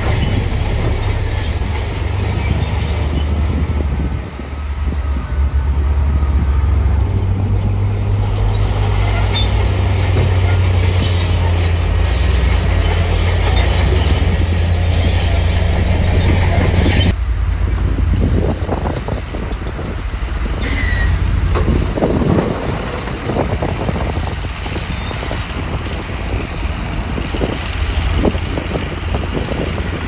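Heavy dump truck diesel engines running with a deep, steady rumble while a raised bed tips out a load of soil and rock. A bit over halfway through the sound changes abruptly to a more uneven engine rumble with scattered knocks.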